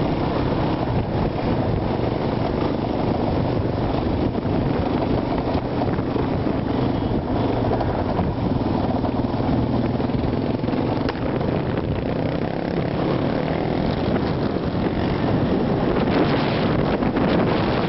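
ATV (quad bike) engine running steadily while riding, heard from on board, with wind buffeting the microphone.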